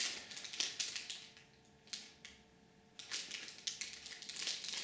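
Plastic snack packaging crinkling and rustling as it is handled, in two spells: during the first second and again from about three seconds in, with a single light click near two seconds.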